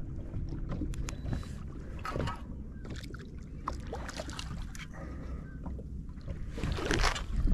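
Steady low rumble of wind and water around a small boat, with scattered clicks and knocks from a baitcasting reel being wound while a hooked fish is played. A louder rush of noise comes near the end.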